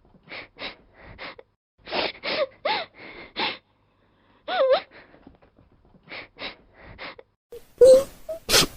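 A person crying in grief: short sobbing wails in groups, the voice bending up and down in pitch between gasping breaths, with louder, harsher cries near the end.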